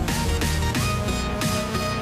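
Background electronic music with a steady beat and plucked, guitar-like notes.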